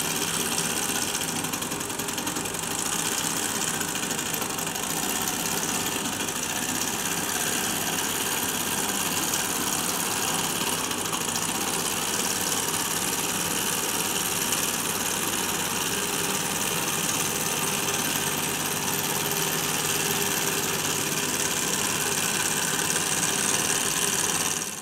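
Small V-type Stirling engine model running steadily, a fast, even mechanical running noise from its piston and flywheel linkage.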